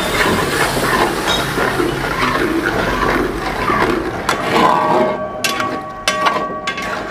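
Chicken, yogurt and masala being stirred in a metal pot over a gas flame: wet sizzling and bubbling with a flat metal spatula scraping along the pot, and several sharp knocks of the spatula against the pot from about four seconds in.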